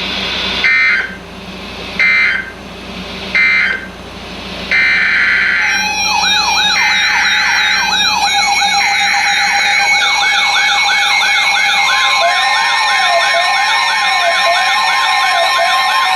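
Three short bursts of weather-radio EAS data tones, the end-of-message signal after a warning. From about five seconds in they give way to a stack of electronic siren wails and steady alarm tones, with more layers joining as it goes on.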